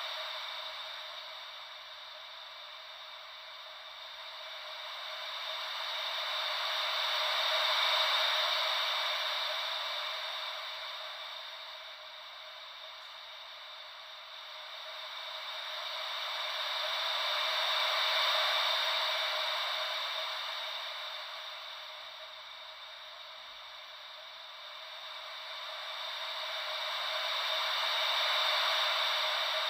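Ocean-wave white noise: an even hiss with no low rumble, swelling and fading in slow, regular cycles about ten seconds apart, like waves washing in and drawing back.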